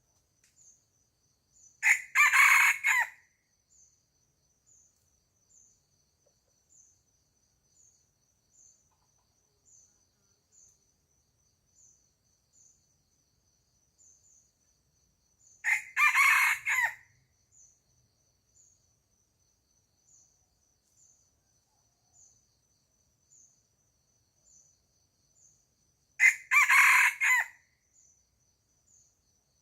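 A rooster crowing three times, each crow about a second long and well spaced apart, over a faint high-pitched insect chirp repeating about once a second.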